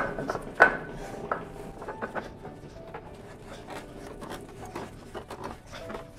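Screw of a wooden bending press being cranked down by hand on a steamed board, with two sharp knocks at the start and about half a second later, then a run of small clicks and short squeaks as the threaded rod turns and the wood is forced into the form.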